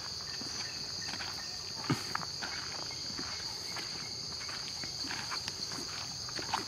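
Steady high-pitched insect chorus droning without a break, with footsteps on a dirt path and a few small knocks, the sharpest about two seconds in.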